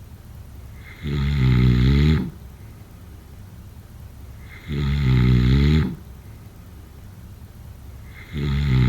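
A person snoring: loud snores about three and a half seconds apart, each lasting just over a second, the third starting near the end. Low steady background noise lies between them.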